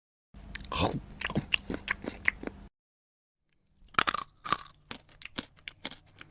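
Close-up chewing of crunchy food: a burst of quick, crisp crunching bites lasting about two seconds, then a short silence, then a second take that opens with two sharp crunches and trails off into lighter chews.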